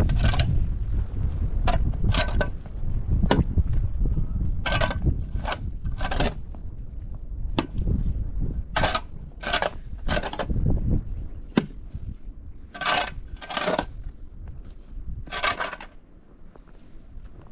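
A series of short crunching noises, about one a second, over a low rumble of wind on the microphone.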